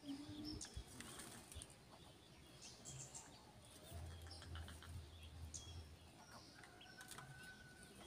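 Near silence: quiet outdoor ambience with faint, scattered chirps of small birds in the background and a few soft rustles.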